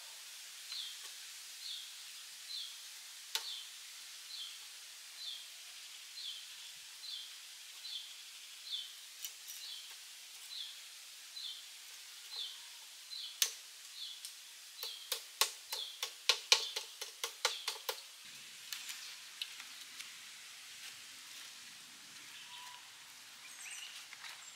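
A short, high chirping call repeats about once a second over steady outdoor background noise. About fifteen seconds in, a quick run of sharp knocks, several a second, lasts about three seconds and is the loudest sound.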